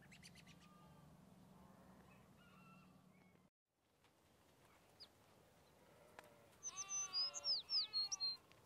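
A bird calling several times in quick succession near the end, the calls gliding downward in pitch. Before that, a faint steady low hum that cuts off abruptly about three and a half seconds in.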